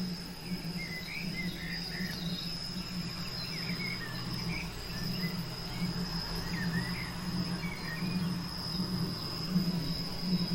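Recorded crickets chirping steadily, with scattered short bird chirps and a low steady hum underneath: a mixed nature-sound ambience.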